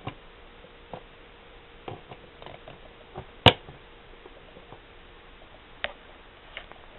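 Scattered light clicks and taps over a faint steady hiss, with one sharp, loud click about halfway through and a smaller one near the end.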